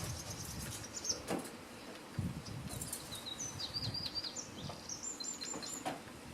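Small songbird chirping in quick series of short, high notes, with wind rumbling on the microphone and a couple of sharp clicks.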